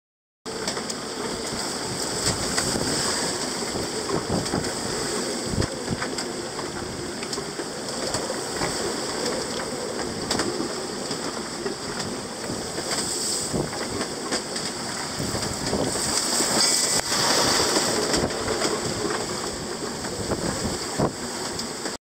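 Gale-force wind and rain in a squall over a sailboat at sea: a continuous heavy rush of noise with scattered sharp taps, growing louder for a couple of seconds about three-quarters of the way through.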